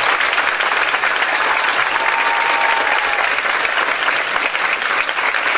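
A large audience applauding: a dense, steady clatter of many hands clapping that dies away right at the end.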